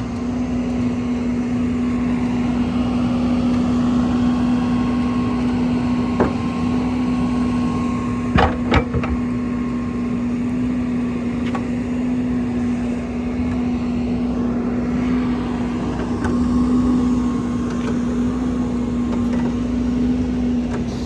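Cat 450F backhoe loader's diesel engine running steadily at a constant speed, with a steady hum. A couple of sharp clicks come close together about eight seconds in.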